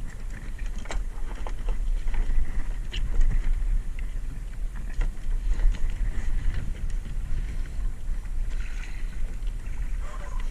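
Sea water sloshing and splashing around a kayak, with many small splashes and knocks scattered through, over a steady low rumble of wind or water on the microphone.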